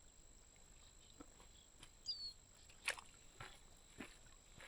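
Faint outdoor quiet with a single short, high bird chirp slurring downward about two seconds in, and a few soft clicks or knocks in the second half.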